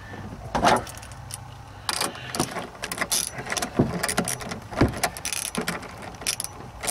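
Hand ratchet clicking in short, irregular runs as the negative battery cable's terminal clamp is tightened onto the battery post.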